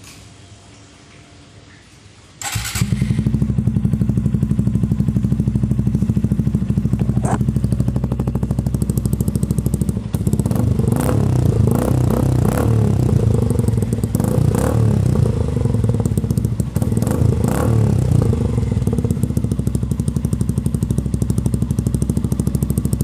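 Suzuki Gixxer 155's single-cylinder engine starts about two and a half seconds in and runs through an Akrapovic M1-style slip-on exhaust, with a catalytic converter in the elbow and no dB killer fitted. It idles, gets several throttle blips in the middle that make it louder and crackly, then settles back to idle.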